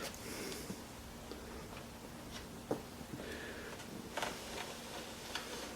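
A few faint, light taps and small knocks over quiet room tone, as a wooden sled fence is nudged into alignment.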